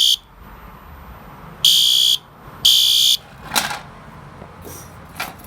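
Fire alarm horn beeping on low volume in its code-3 pattern: the tail of one half-second beep, then two more beeps a second apart, after which it stops. Two short clicks follow later.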